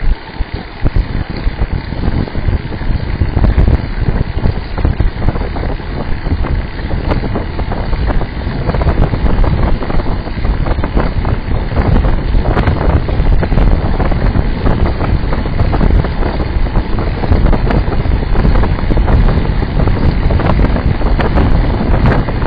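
Loud wind buffeting on the microphone of a camera mounted on a moving road bike: a fluttering low rumble that gusts up and down.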